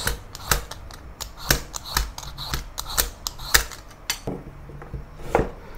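Y-peeler scraping the skin off a purple sweet potato: short sharp strokes, about two a second, with a brief pause near the end.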